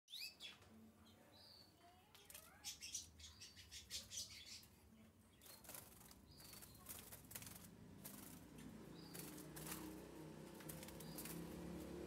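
Canary fluttering its wings in short bursts inside a wooden cage as it is caught by hand, with a few brief high chirps.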